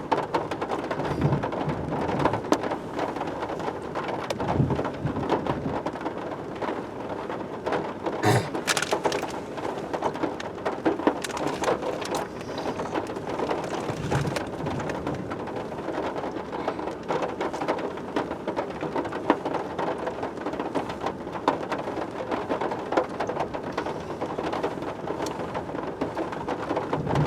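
Steady rain falling on a truck, heard from inside the cab: a dense, even wash of sound scattered with many separate drop ticks.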